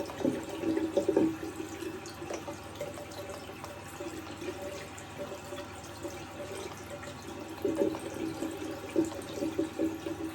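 Tap water running into a sink with uneven splashing, as if something is rinsed under it, and a few light knocks, mostly near the start and again late on.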